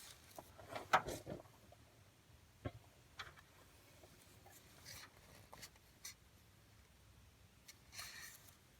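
Faint clicks and scraping of hands fumbling to fit the distributor hold-down clamp and bolt on a Ford 302 V8, with a sharper click about a second in and another near the three-second mark.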